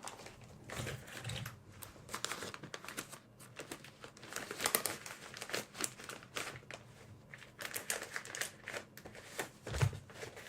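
A paper tissue being handled and crumpled close to the microphone, crinkling and rustling in irregular bursts.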